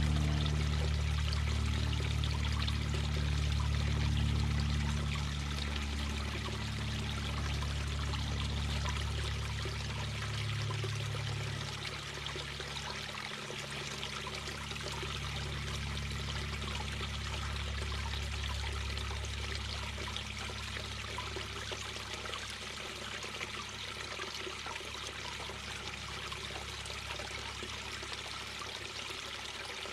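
Mountain brook babbling over rocks: a steady rush and trickle of water. Underneath, a low steady hum is strongest for the first ten seconds or so, then fades.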